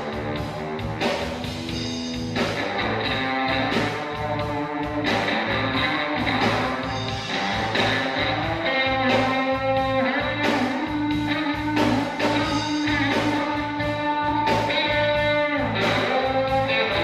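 A band playing reggae: guitar carrying held melodic notes over bass and a steady drum beat.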